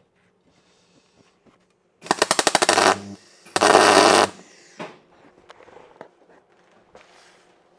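Electric arc welder tack-welding a steel angle-iron frame: a loud crackling, buzzing arc for about a second starting two seconds in, sputtering in rapid pulses, then a second, steadier burst after a short pause. A few faint metal clinks follow.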